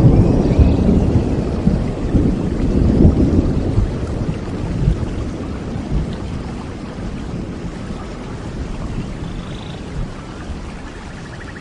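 Thunderstorm: a long roll of thunder, loudest at the start and slowly dying away, over steady rain.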